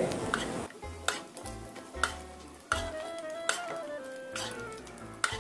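Fried squid balls and kikiam sizzling in hot oil in a nonstick frying pan while they are scooped out with a metal mesh strainer, with several sharp clinks of the strainer against the pan.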